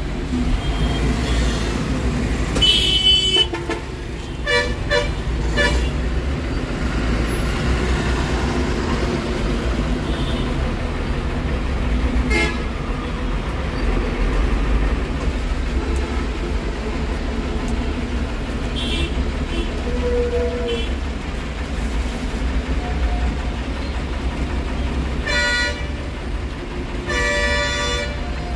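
Steady low rumble of street traffic, with short pitched vehicle-horn toots about three seconds in, around five seconds in, and twice near the end.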